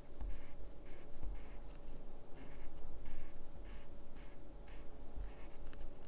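Colored pencil scratching on paper in quick short strokes, about two to three a second, as rows of short hatch lines are drawn.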